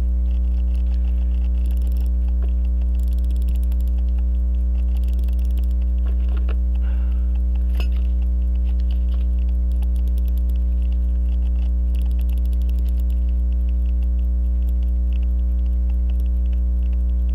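Steady electrical hum, the loudest sound throughout, with faint metallic ratchet clicks as a Waltham key-wind pocket watch movement is wound with a watch key, coming in a few short runs.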